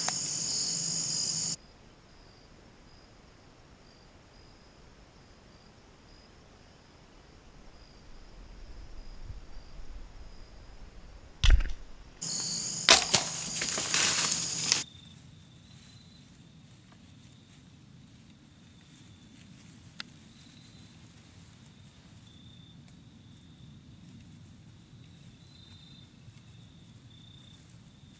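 A sling bow shot about eleven and a half seconds in: one sharp snap of the rubber bands loosing an arrow. A couple of seconds of loud rustling and crackling follow, then only a faint, steady, high insect trill.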